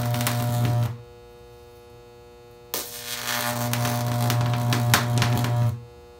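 High-voltage electric arc burning sodium: a loud mains buzz with crackling. It cuts out about a second in, strikes again with a sharp crack near three seconds in, and cuts out again near the end. In the gaps a steady transformer hum remains.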